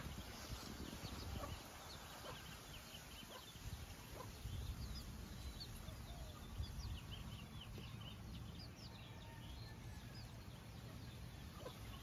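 Chickens and small birds calling softly: many short, high chirps, with a few lower clucks, over a low rumble of wind on the microphone.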